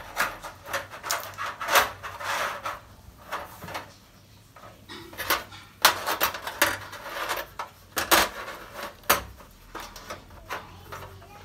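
New LED backlight strips being handled and laid into an opened LED TV's back panel: irregular clicks, light knocks and rubbing as the strips are positioned.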